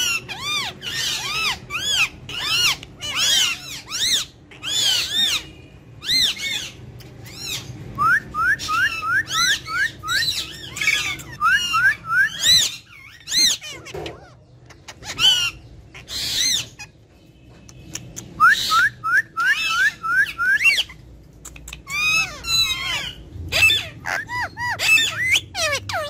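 Indian ringneck parakeets calling: a steady string of short, sharp chirps and squawks, with three runs of quick rising whistled notes, about five a second.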